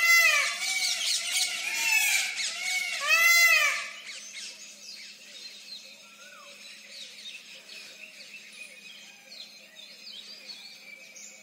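Indian peafowl giving a series of loud, arching calls in the first four seconds. Fainter chirps of small birds follow.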